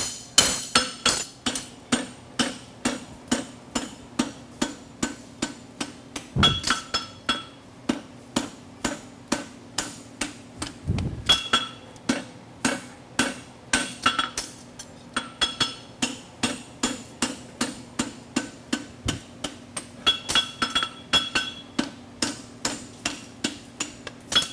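Farrier's hammer striking a hot steel draft horseshoe on the anvil, steady blows about two to three a second, some of them ringing out. The shoe is being shaped into a hind draft bevel.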